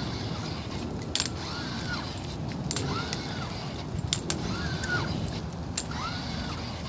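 Powered lower-limb exoskeleton walking, its joint motors giving a short rising-then-falling whine with each step, about every one and a half seconds. Crutch tips click sharply on the paving between steps.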